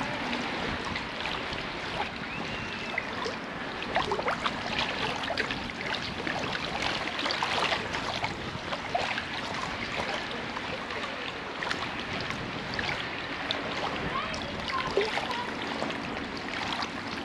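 Steady rush and swish of sea water as a shrimp push net is pushed through the shallows, with many small scattered clicks and ticks.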